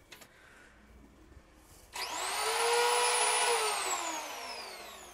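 Total TL7508226 750-watt electric planer switched on about two seconds in. Its motor and cutter drum run up to a steady whine, then it is switched off and coasts down with the pitch falling away slowly. The motor sound is smooth, a sign of low vibration.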